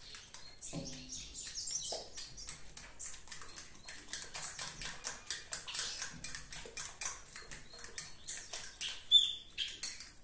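A utensil beating mashed banana and egg in a ceramic bowl: quick, rhythmic clicking and scraping against the bowl, several strokes a second.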